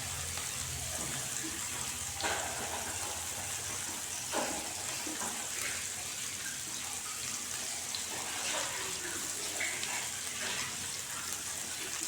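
Sardines frying in hot coconut oil in a pan: a steady sizzle with a few faint pops.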